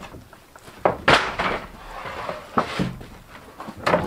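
Wooden pallets knocking and scraping against each other as one is dragged off a stack: a handful of hollow wooden knocks, the loudest just over a second in, with rough scraping between them.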